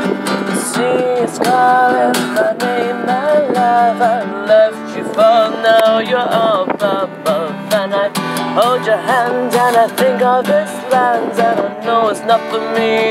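Acoustic guitar picked and strummed under a woman's singing voice, with wavering, drawn-out sung notes.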